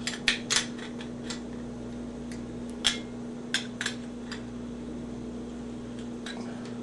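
Scattered light clicks and taps as brass plumbing fittings in plastic packets are handled on a wooden tabletop, over a steady low hum.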